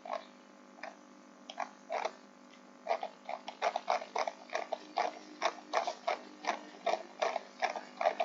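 Typing on a computer keyboard: a few scattered key clicks, then a steadier run of about three or four a second from about three seconds in.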